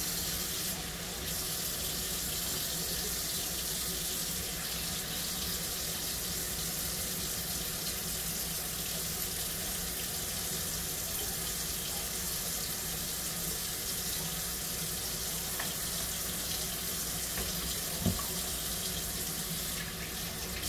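Kitchen faucet running steadily into a stainless steel sink while slices of raw beef liver are rinsed under the stream, with one brief knock near the end.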